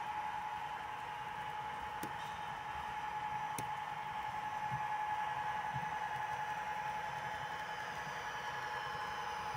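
Two sharp clicks about a second and a half apart as two HO-scale model railroad turnouts are thrown, over the steady high-pitched hum of the running model train.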